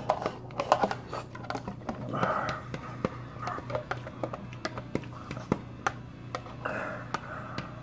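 Eating the last bits from a clear plastic takeout bowl tipped up to the mouth: a string of sharp clicks and taps of a fork and fingers on the thin plastic, with short mouth sounds in between.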